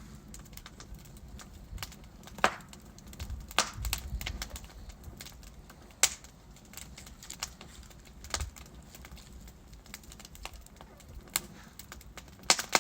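Wood fire burning in a fireplace: logs crackling, with sharp pops at irregular intervals of a second or more over a soft low rumble of the flames.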